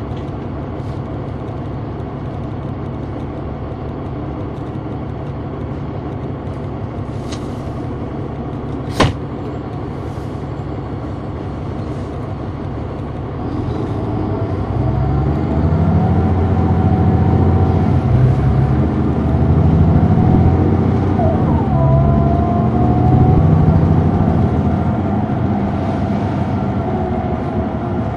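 Caterpillar C9 diesel and ZF Ecomat automatic transmission of a 2004 Neoplan AN459 articulated bus, heard from on board. It runs steadily at first, with one sharp knock about nine seconds in. From about halfway it pulls louder, with a rising and falling howl that swells and dips several times.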